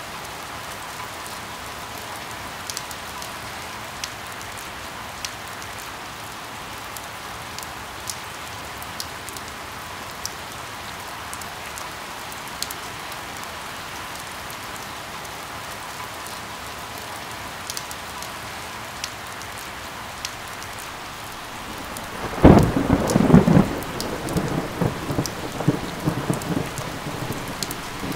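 Rain falling steadily with scattered sharp drop ticks. Near the end a loud clap of thunder breaks suddenly and rumbles on unevenly over the rain.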